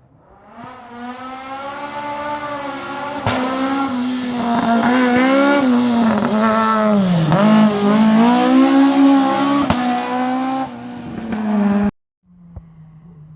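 Rally car's engine at full throttle, growing louder as the car approaches, its pitch dipping and climbing again with lifts and gear changes. The sound cuts off abruptly near the end and is replaced by a quieter, steady engine note.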